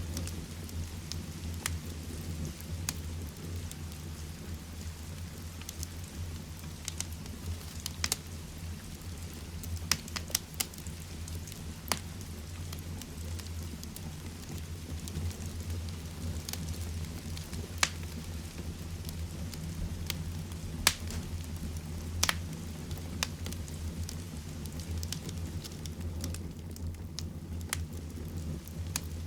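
Heavy rain falling steadily, with a wood fire in a fireplace crackling alongside it and now and then giving a sharp pop.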